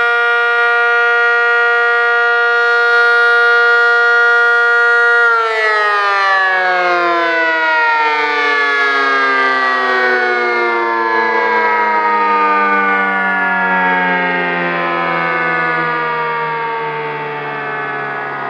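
ACA Cyclone dual-tone outdoor warning siren, running without its top lid, sounding a steady two-tone chord. About five seconds in it is cut off and winds down, its pitch falling slowly and still sounding at the end.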